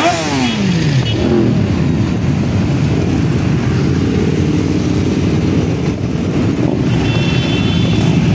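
Many motorcycles riding past in a slow procession, their engines blending into a continuous rumble. Right at the start, one bike passes close and its engine pitch falls away.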